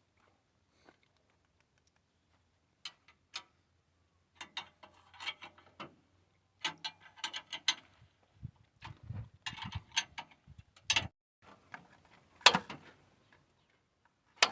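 Garlic seed drill's gears and metering mechanism clicking and rattling in irregular bursts, with one sharp loud click near the end.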